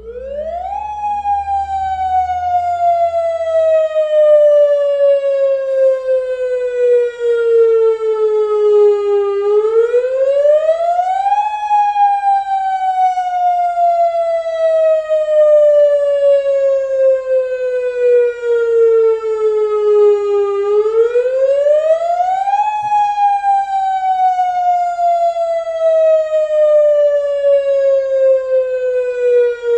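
Emergency alert siren sounding a repeating wail: its pitch climbs over about two seconds, then sinks slowly for about nine, three times over.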